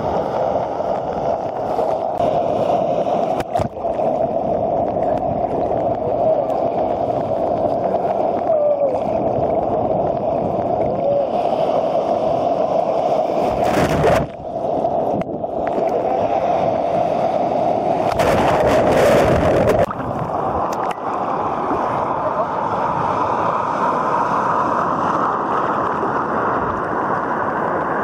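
Sea waves washing and sloshing around a camera held at the water's surface in the surf. There is a louder rush of breaking whitewater about halfway through and another around two-thirds of the way in.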